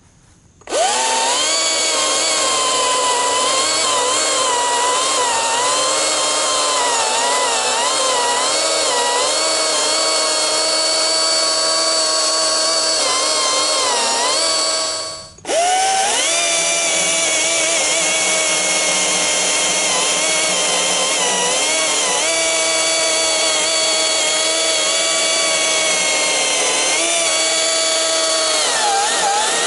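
Battery-powered Stihl MSA 200 chainsaw running as it cuts through a large oak log: an electric motor-and-chain whine whose pitch wavers and sags under the load of the thick wood. It winds down briefly about halfway, then starts up again and keeps cutting.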